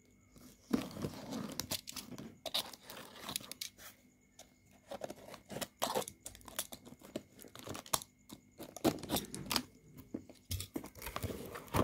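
Utility knife blade scraping and slitting packing tape along the seam of a cardboard box, with the tape tearing and the cardboard crackling as hands work the box open. Irregular short scrapes and crackles, a few sharper clicks among them.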